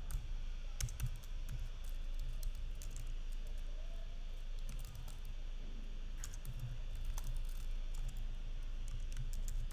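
Typing on a computer keyboard: irregular keystrokes in small clusters with pauses between them.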